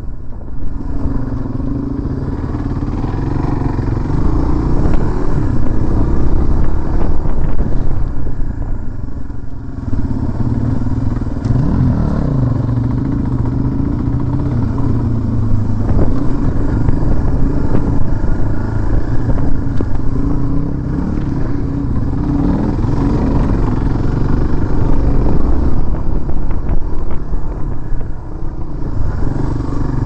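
Dual-sport motorcycle engine running on a dirt trail, its pitch rising and falling a few times as the throttle is opened and closed.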